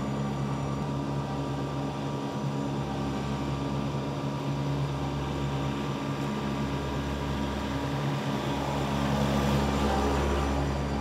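John Deere 2038R compact tractor's three-cylinder diesel engine running steadily while mowing with its 72-inch mid-mount deck. It grows louder near the end as the tractor passes close by.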